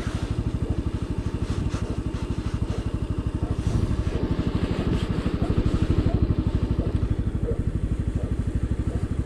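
Victory ZS125 scooter's single-cylinder four-stroke 125 cc engine idling at a standstill, a steady, even, fast putter.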